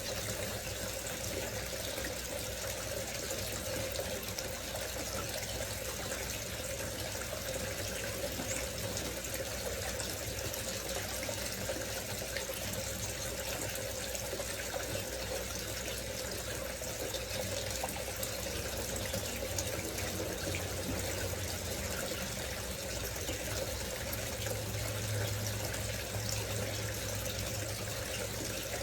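Decorative water fountain running, water falling and splashing steadily without a break.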